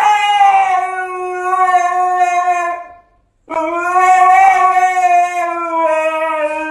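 Husky howling: a long howl that sinks slightly in pitch breaks off about three seconds in, and after a short pause a second long howl begins.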